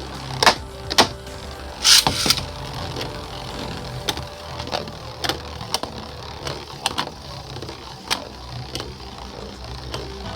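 Beyblade spinning tops, a custom 3D-printed Aries and a Lightning L-Drago, battling in a plastic stadium. Loud clashes come in the first couple of seconds, then lighter, irregular clicks and knocks as the tops keep spinning and touching.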